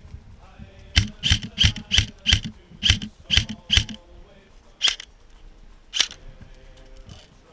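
Airsoft rifle firing a quick string of about nine single shots in under three seconds, roughly three a second, each a sharp crack with a low thump. Two more single shots follow about a second apart.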